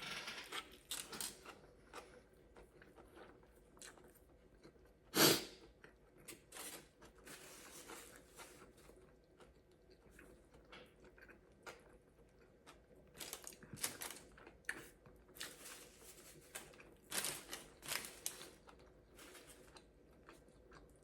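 A person chewing food close to the microphone: a string of soft, wet mouth clicks and crunches, with one louder bite about five seconds in.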